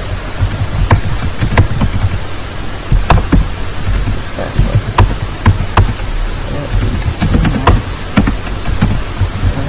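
Computer keyboard typing: irregular clicking keystrokes, several a second, over a steady low electrical hum and hiss from the microphone.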